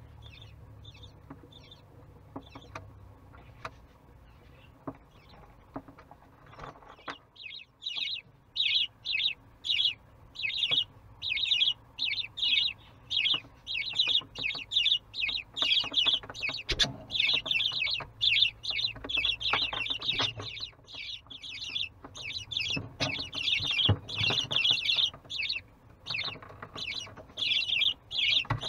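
Baby budgerigars in the nest box chirping in a rapid, repeated series, two or three calls a second. The calls start faintly about seven seconds in and grow louder.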